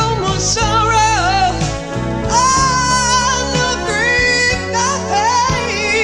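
Soul-style Christmas song: a wavering melody line, sung or played without words, over bass and drums.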